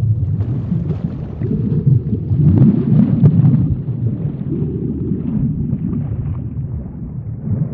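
Underwater ambience sound effect: a deep, continuous rumble with bubbling gurgles swelling and fading through it.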